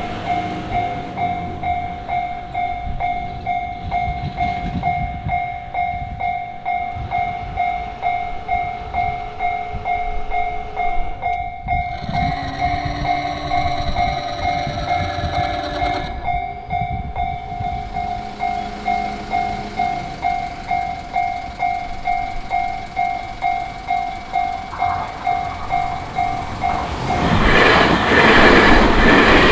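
Japanese railway level-crossing warning bell ringing in a steady, even series of dings. The bell stops a few seconds before the end as a train passes loudly over the crossing.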